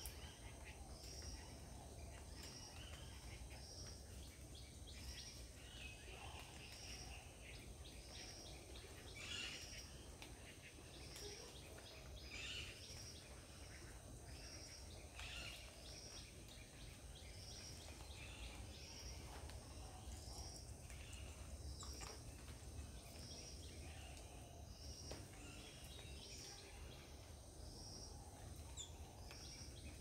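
Faint garden ambience: a steady high insect drone, a short high note that repeats about once a second throughout, and scattered bird calls.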